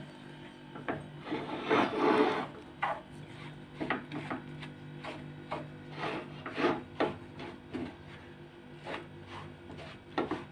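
A wooden spatula scraping and stirring besan (gram flour) and ghee in a non-stick pan, in quick irregular rasping strokes, as the ghee is worked into the flour at the start of roasting. A steady low hum runs underneath.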